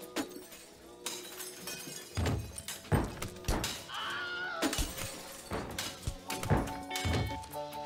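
Sound-effect crashes of a violent off-screen struggle: a run of heavy thuds and breaking impacts, about eight over several seconds, with a short wavering high sound in the middle. Music comes back in near the end.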